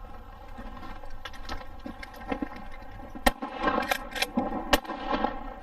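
Two 28-gauge shotgun shots about a second and a half apart, over geese honking repeatedly.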